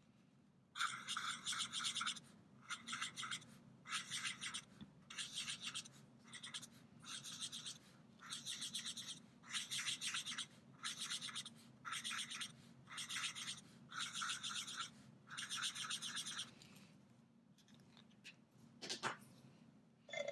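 Felt-tip marker nib rubbing on shrink plastic in short circular strokes as dots are coloured in: about fifteen scratchy strokes, roughly one a second, stopping near the end.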